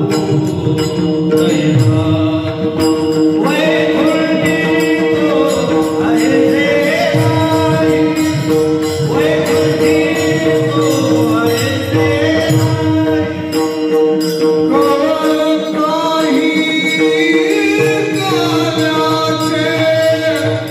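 Warkari devotional singing: men's voices singing a kirtan melody over a steady held drone, with taal hand cymbals and mridang keeping time.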